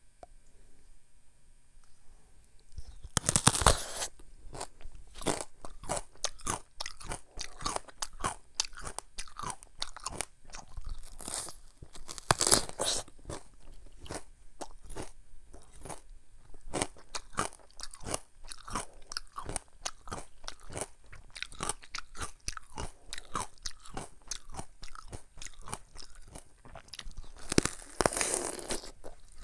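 Crunchy bites into a peeled mini Korean melon (chamoe), followed by steady crunchy chewing. The biggest bites come about three seconds in, around twelve seconds in and near the end.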